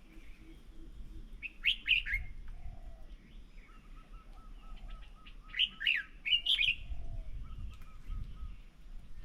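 Birds calling: two bursts of loud, quick chirping notes, about a second and a half in and again around six seconds, with a fast run of short, even, repeated notes between and after them.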